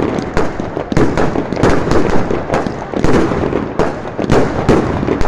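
Fireworks going off in rapid succession: several sharp bangs a second over a dense, continuous crackle.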